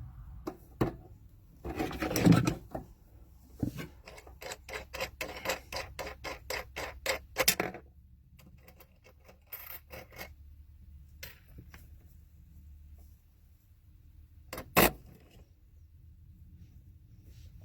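Hand tightening of the inverter's battery cable terminals. There is a scrape, then a run of evenly spaced clicks, about four a second, for several seconds, with scattered knocks and a single sharp click near the end.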